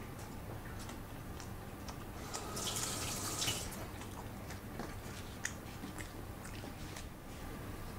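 Quiet kitchen handling sounds: scattered light clicks of a utensil and dishes, with a short hiss about two and a half seconds in.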